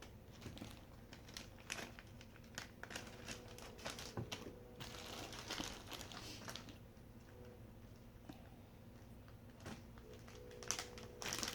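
Small jewelry pieces being handled, with scattered light clicks and taps and bursts of crinkling plastic packaging, the longest about five seconds in.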